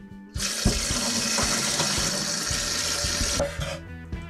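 Water running from a tap for about three seconds, starting and stopping abruptly.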